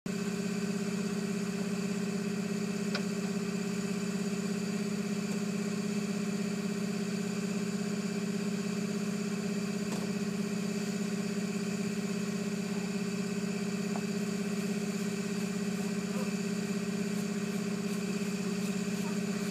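Snowtrac snowcat engine idling steadily, an even unchanging hum.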